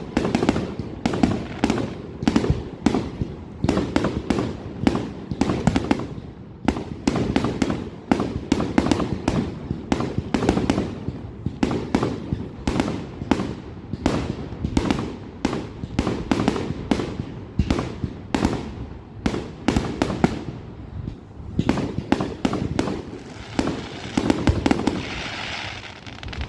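An aerial fireworks display going off in a rapid, continuous barrage of booming bursts, several a second. Near the end, a crackling hiss rises under the bangs.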